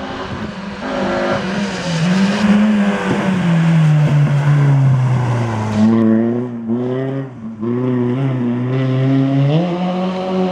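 A rally hatchback's engine as the car approaches on a wet tarmac stage. The engine note drops steadily as it brakes for a hairpin, stays low and stutters through the bend, then climbs as the car accelerates away near the end. There is a hiss from the tyres on the wet road.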